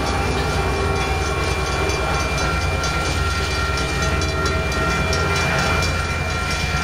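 Amtrak Surfliner train running past at close range: the F59PHI diesel locomotive's engine drones steadily under a steady high whine, with the rolling of the railcars' wheels on the rails.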